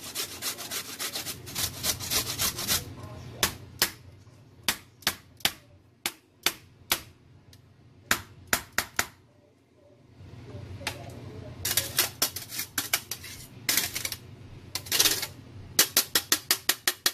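Carrot grated on the coarse side of a stainless steel box grater: rasping strokes, fast and dense at first, then spaced apart, pausing briefly about ten seconds in before speeding up again.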